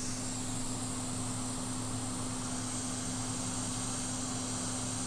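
Hot air rework station blowing on a circuit board to heat it before a chip is lifted: a steady airflow hiss with a low, even hum underneath.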